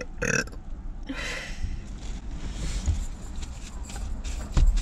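Knocks and thumps of things being handled inside a car, over a low steady rumble, with a short hiss about a second in and the loudest thump near the end.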